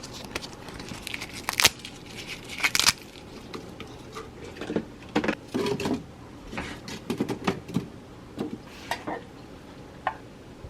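Irregular clicks, brief rustles and light clinks of objects being handled, with short bursts about one and a half, three, five to six and seven to eight seconds in.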